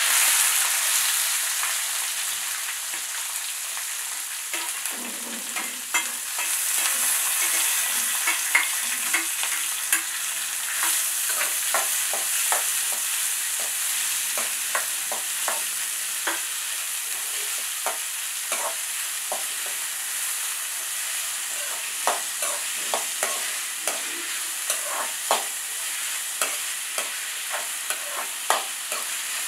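Chopped onions and green chillies frying in hot oil in a metal kadai: a steady sizzle, loudest in the first few seconds as the onions go in and then settling. A metal ladle stirs them, with frequent sharp clicks and scrapes against the pan.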